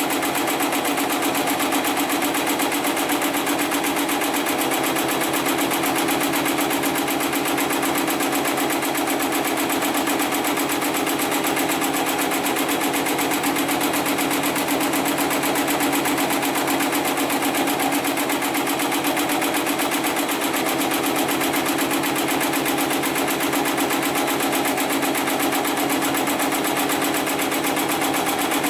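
Heavy-duty programmable pattern sewing machine running continuously, its needle stitching in a fast, even rhythm without pause.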